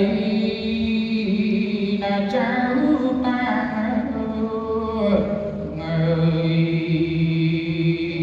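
A male Buddhist monk singing Khmer smot, the melismatic chanted recitation of Buddhist verse, solo into a handheld microphone: long held notes that waver and slide between pitches.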